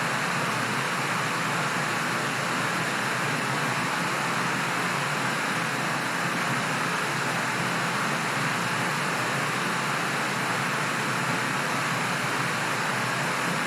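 Steady rushing air noise, an even hiss with no change in level or pitch.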